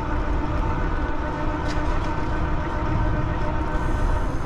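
Wind buffeting the microphone and road rumble from a moving e-bike, with a steady whine from the Ride1Up Cafe Cruiser's hub motor under power.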